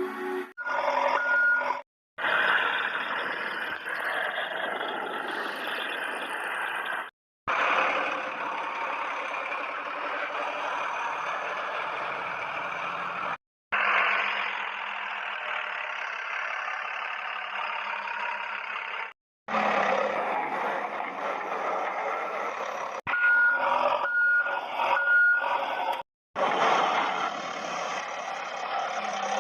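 Toy construction vehicles running, a steady whirring of small motors and gears heard in several short stretches split by abrupt cuts. Short reversing beeps sound once early on and then four times in a row near the end.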